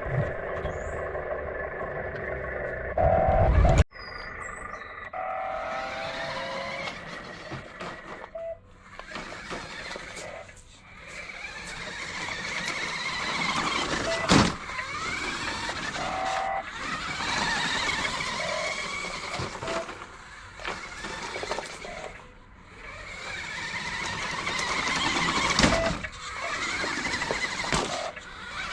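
DEERC 1:6 scale RC monster truck running, its built-in speaker playing a simulated engine sound: a steady idle at first, then revving that rises and falls as the truck is driven, with a sudden cut about four seconds in.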